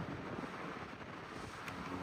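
1950 GE Vortalex 12-inch oscillating table fan running smoothly on high speed, a steady rush of air from the blades with little motor hum.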